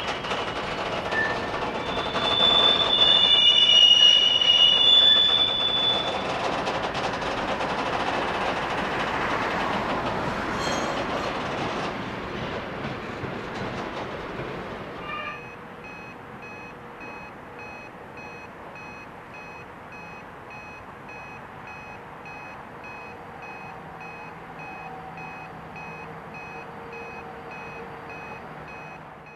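Freight wagons rolling through the beam rail brakes (retarders) of a hump classification yard, the brakes gripping the wheels with high, shrill squeals for the first several seconds over a rolling rumble that then fades. About halfway through the sound drops abruptly to a quieter steady hum with faint steady tones.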